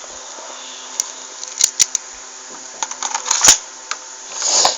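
Plastic clicks and rattles of an airsoft M1911 pistol being reloaded with BBs. The clicks are scattered, with the loudest one sharp, about three and a half seconds in, and a short scraping noise near the end.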